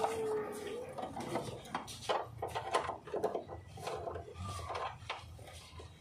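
Irregular clicks, knocks and light rattles of a seat belt and its retractor hardware being handled while being fitted at a car's door pillar.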